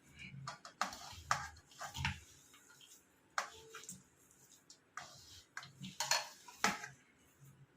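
Metal kitchen utensils and vessels clinking and knocking against one another, a string of separate sharp clinks.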